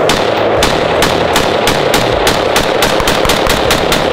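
Steyr AUG bullpup rifle fired rapidly, shot after shot, about sixteen shots that come faster toward the end.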